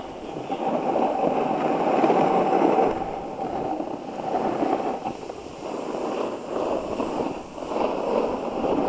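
Snowboard sliding over groomed snow: a rushing scrape that swells and fades several times as the board turns.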